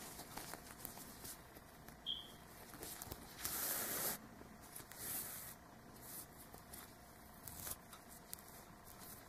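Faint rustling of black yarn being drawn through crocheted fabric and the fabric being handled, with a louder rustle lasting under a second about three and a half seconds in.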